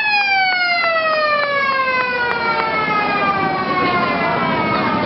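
A mechanical siren winding down, its wail falling slowly and steadily in pitch after being spun up just before.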